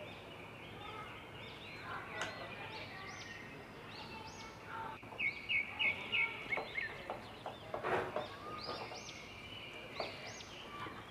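Birds chirping and calling over and over, with a quick run of repeated notes about halfway through. Now and then a spatula gives a soft knock or scrape against the glass bowl as batter is stirred.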